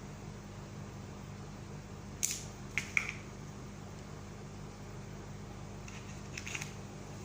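A few short clicks and scrapes from plastic kinetic-sand molds and tools being handled, in two small clusters, about two seconds in and again near the end, over a steady low hum.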